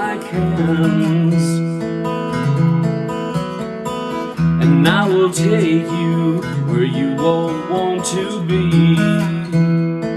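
Music: acoustic guitar strumming chords in a steady rhythm, with a wavering melody line above them, busiest about halfway through.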